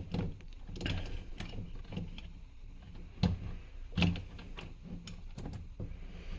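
Mini cordless chainsaw's chain and bar being handled and fitted by hand: irregular clicks and small knocks of metal chain links and plastic housing, with two louder knocks about three and four seconds in.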